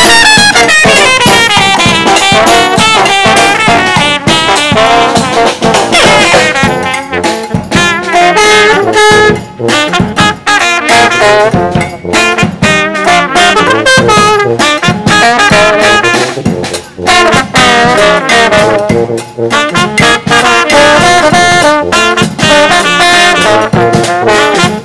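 Brass band playing a tune, with trumpet and trombone leading in quick runs of notes.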